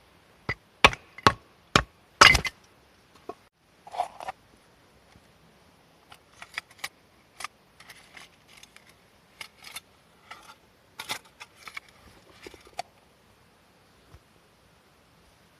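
A series of sharp knocks and clinks, as of hard objects being handled and set down: four loud ones close together in the first two and a half seconds, then lighter scattered clicks for several seconds.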